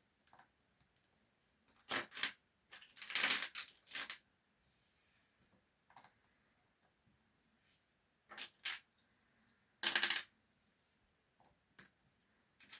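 Small hard objects clicking and clattering in short, irregular rattles, with quiet gaps between them.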